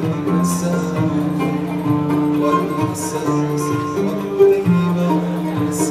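Music: plucked strings over a bass line that steps between notes, with a few light percussion strokes.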